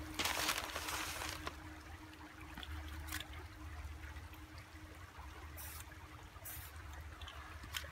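Aerosol spray paint cans hissing in bursts: one longer spray of about a second, then several short puffs.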